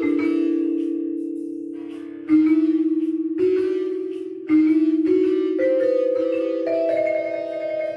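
Instrumental music from a small ensemble: held, slightly wavering melody notes, with a fresh struck chord about two seconds in and again about four and a half seconds in.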